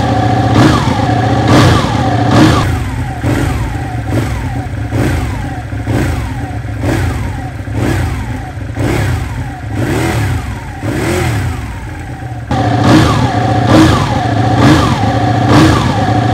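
Ducati Panigale 899's L-twin engine being blipped at a standstill, the revs rising and falling back about once a second. The blips are somewhat quieter through the middle stretch and louder again near the end.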